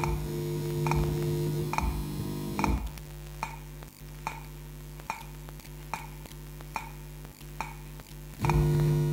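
Electronic music: a steady low synthesizer drone with a sharp click pulsing a little faster than once a second. The drone drops back about three seconds in and swells again near the end.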